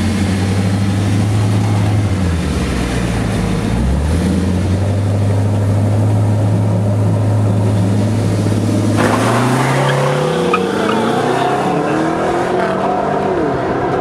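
A 2015 Camaro SS's 6.2-litre V8 and a rival car's engine held at steady revs at the start line, the note dipping and coming back twice. About nine seconds in the cars launch and the engine note climbs through the gears, rising, dropping at each shift and rising again as they pull away.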